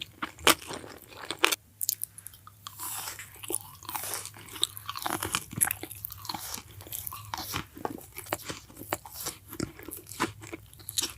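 Close-up crunching and chewing of crispy chicken: a steady run of irregular crackling bites and chews, with a short pause about one and a half seconds in.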